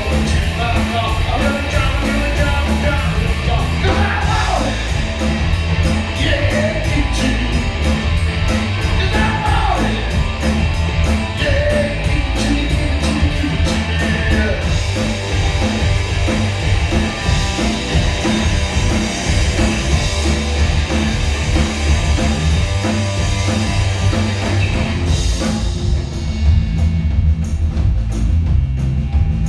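A rock band playing live, loud and full: electric guitar, bass guitar and drum kit, with a lead singer singing over them. Near the end the drums' rapid high cymbal strokes drop out while the band carries on.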